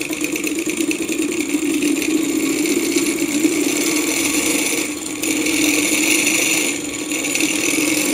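Small flame-heated twin-piston Stirling engine running fast with a propeller spinning, its pistons and linkage rattling in a rapid, even patter. The sound dips briefly twice in the second half.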